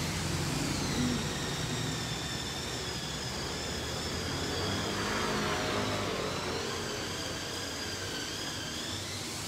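Steady background hum and hiss, with faint high whining tones that drift slightly up and down; no single distinct event.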